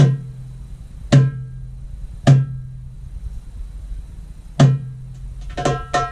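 Darbuka (goblet drum) played live by hand: four deep, ringing doum strokes spaced one to two seconds apart, the accented opening beats of a belly-dance drum solo, then, from about five and a half seconds in, a quick run of sharper, higher tek-ka strokes.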